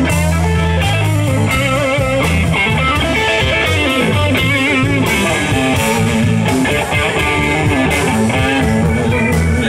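Live blues band playing a slow blues: an electric guitar plays a lead line of wavering, bent notes over bass guitar and drums.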